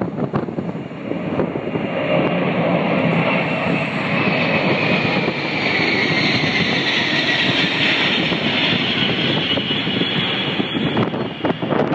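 Boeing 747 Shuttle Carrier Aircraft with a space shuttle on its back flying low overhead on its four jet engines. The jet noise swells and holds loud for several seconds, with a whine that falls in pitch as the plane goes past. It eases near the end, when wind buffets the microphone.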